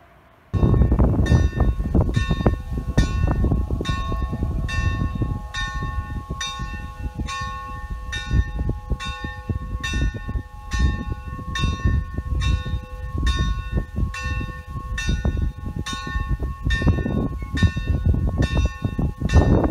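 Church bell in the basilica's tower ringing, with evenly spaced strokes and a steady ringing tone, over a heavy low rumble. It starts about half a second in.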